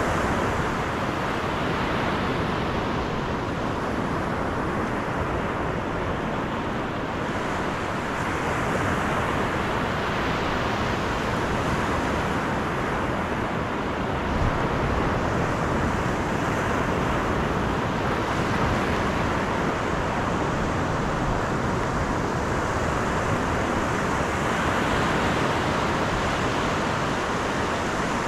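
Steady road and wind noise of a car driving along, an even rush with no breaks.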